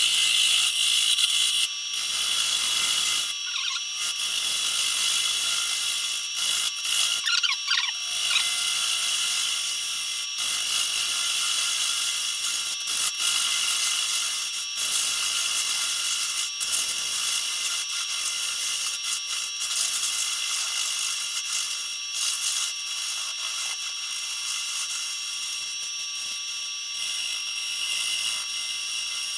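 Bowl gouge cutting away the tenon on the bottom of a large spalted pecan bowl spinning on a wood lathe: a continuous hiss of hard, dry pecan being cut, over a steady whine from the running lathe, with a few brief breaks as the tool is lifted.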